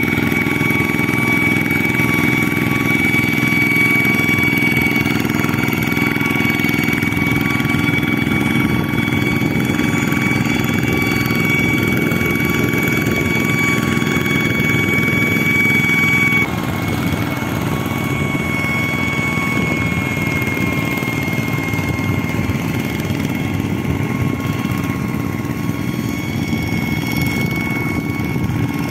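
Single-cylinder diesel engine of a two-wheel hand tractor running steadily under load as its cage wheels work a flooded rice paddy, with a steady high whine over the engine hum. The level drops slightly about halfway through.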